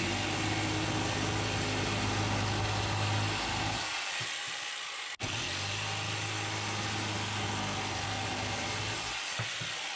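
Corded jigsaw cutting a curve in a piece of plywood. The motor runs steadily and cuts out for a split second about five seconds in, then starts cutting again.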